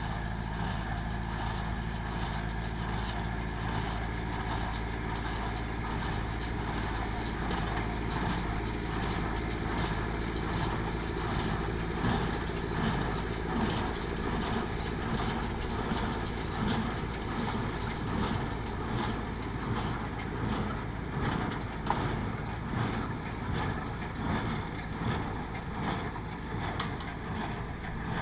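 Massey Ferguson 165 tractor running steadily while driving a Massey Ferguson 128 square baler. From about halfway through, a regular clatter of the baler working comes through, roughly once a second.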